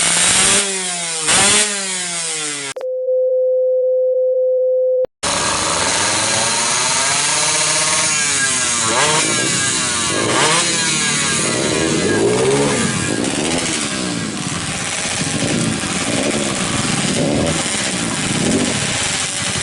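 Yamaha F1ZR 116 cc two-stroke engine on its stock exhaust being revved: two quick blips of the throttle, then a steady beep tone for about two seconds and a brief cut, then repeated revs rising and falling in pitch.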